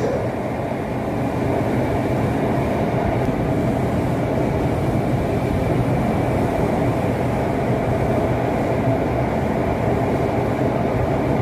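Running noise inside a BEML-built Mumbai Metro train travelling at speed on elevated track: a steady rumble of wheels on rail and the train's drive, with a faint steady high tone.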